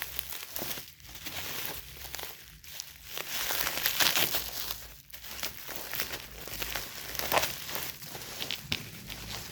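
Parcel packaging crinkling and rustling in uneven bursts of crackles as it is worked open by hand.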